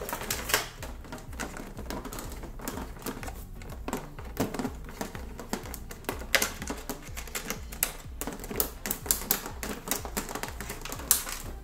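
Clear plastic toy packaging crinkling and crackling as it is handled, in many irregular sharp crackles, with background music underneath.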